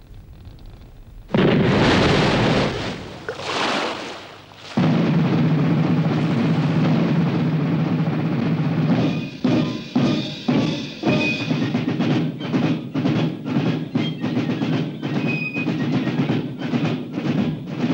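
Title music with heavy drums and percussion. A sudden loud swell comes about a second and a half in, then a held low chord, with repeated drum beats joining from about nine seconds in.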